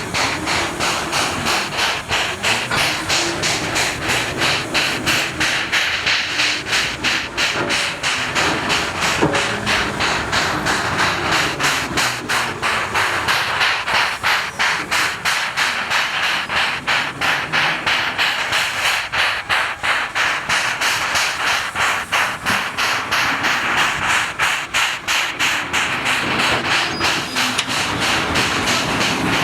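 China Railways JS-class 2-8-2 steam locomotive working steadily, its exhaust beating in an even, rapid rhythm over a constant steam hiss.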